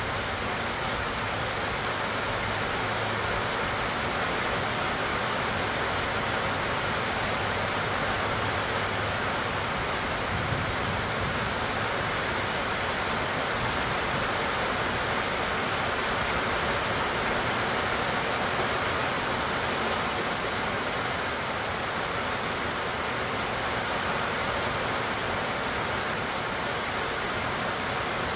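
Steady rain falling through a pecan orchard's trees onto the grass, an even hiss that never lets up.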